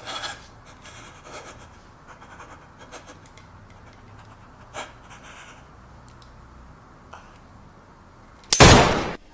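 Faint background hiss with a few small clicks, then, near the end, a sudden loud burst of noise lasting under a second that cuts off sharply.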